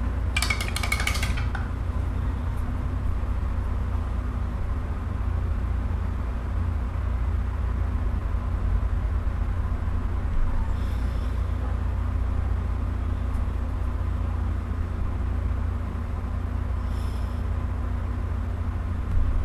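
A steady low background rumble, with a brief high clatter with a light ring about half a second in.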